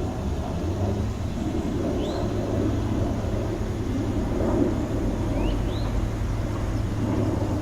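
Steady low rumble of city traffic heard from a park, with short rising bird chirps: one about two seconds in and two close together later.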